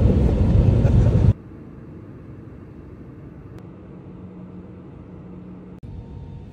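Jet airliner cabin noise: a loud, deep engine roar that cuts off suddenly about a second in, giving way to a much quieter steady cabin hum.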